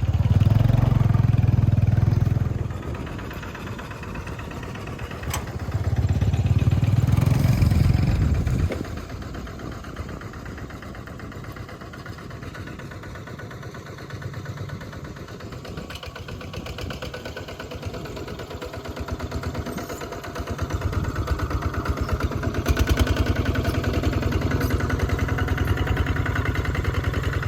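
A small engine running, with two loud low rumbles in the first several seconds; it grows louder about two-thirds of the way through.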